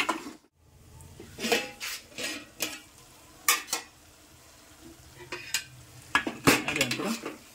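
Metal ladle stirring thick egg curry in a metal pot, with separate scrapes and clinks of the ladle against the pot, coming most often near the end.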